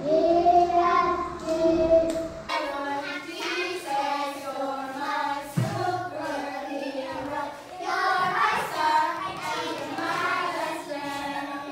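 A class of young children singing a worship song together. About two and a half seconds in, the sound cuts abruptly to a different group of children singing.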